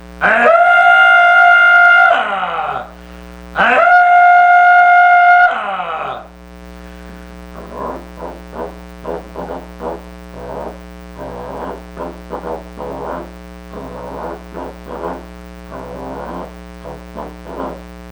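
A person doing vocal sound effects: two loud horn-like blasts about two seconds long, each sliding down in pitch as it ends, followed by a run of short, quieter vocal sounds at an irregular rhythm over a steady hum.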